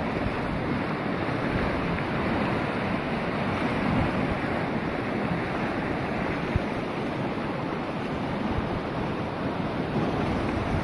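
Fast-flowing river rushing over rapids, a steady, even wash of water noise.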